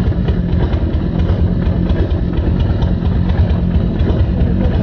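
Harley-Davidson Shovelhead V-twin chopper engine idling steadily with an uneven low pulse.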